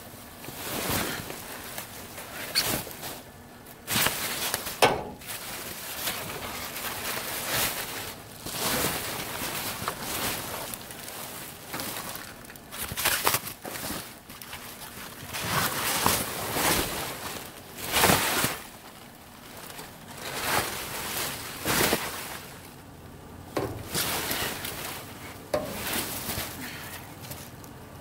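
Clear plastic bags of foam packing material rustling and crinkling in irregular bursts as they are poked and shifted with a long-handled garden fork.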